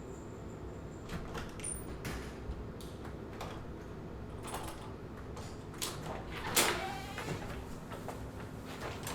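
Irregular scrapes and knocks of hand woodworking, with one louder scrape about six and a half seconds in.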